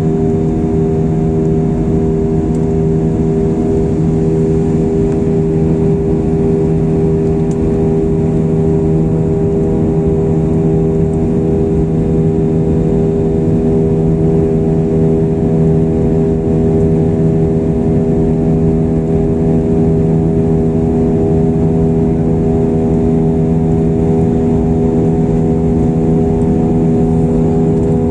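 Airbus A320's jet engines droning steadily, heard inside the cabin in the climb after takeoff: a steady hum of several tones over a low rumble.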